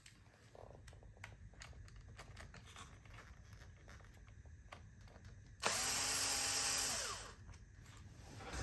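A handheld cordless drill-driver runs once for about a second and a half, then winds down. Faint handling clicks come before and after it.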